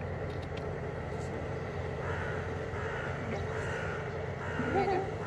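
Hooded crows cawing: a run of short, repeated caws starting about two seconds in, over a steady low rumble.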